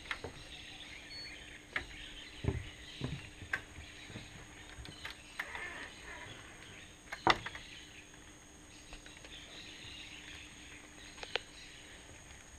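Rainforest ambience: a steady high drone and hiss, with scattered sharp knocks and clicks. The loudest knock comes a little past halfway.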